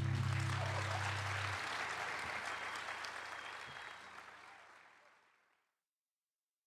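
Live audience applauding at the end of a song, fading out about five seconds in, with the band's last low note dying away under it in the first second and a half.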